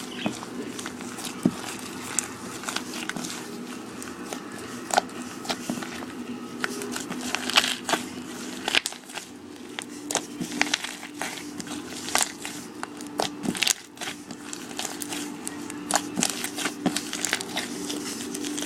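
Slime being mixed, giving irregular crackling pops and clicks throughout.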